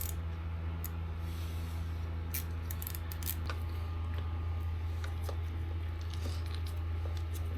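Scattered small metallic clicks and taps from hand tools as bolts are fitted to a motorcycle clutch slave cylinder, over a steady low hum.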